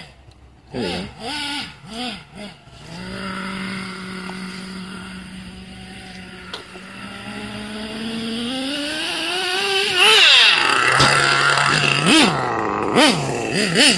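HPI Savage X 4.6 nitro RC monster truck engine: a few quick throttle blips, then a steady idle, then a long rising rev as it speeds up, then loud running with short throttle bursts near the end.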